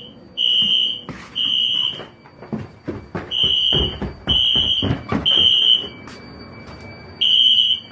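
Fire alarm sounder beeping a high, piercing tone in the temporal-three evacuation pattern: three short beeps, a pause, then three more. Low knocks and handling thuds sound under the beeps in the middle.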